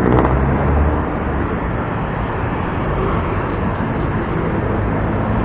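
Steady road traffic noise with wind rushing past, heard from a bicycle moving along the road.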